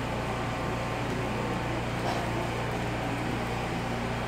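Steady low hum with an even hiss over it, unchanging throughout: background room noise with no speech.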